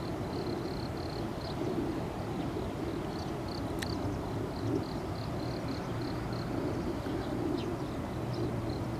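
Outdoor ambience: a steady low rumble with a string of short, high chirps from a small animal, about two or three a second, and a single sharp click a little before the middle.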